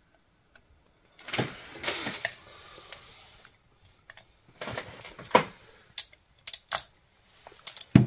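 Irregular metallic clicks and clatters of hand tools and parts being handled during spark plug work, with a stretch of rustling and scraping from about a second in.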